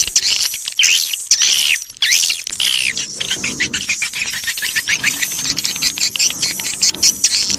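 Swiftlet lure call recording: a dense, continuous chatter of many overlapping high chirping trills and rapid clicks from edible-nest swiftlets. It is the kind of 'suara tarik' sound played in a swiftlet house to draw the birds in to roost and nest.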